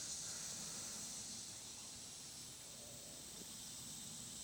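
Faint, steady, high-pitched chorus of evening insects.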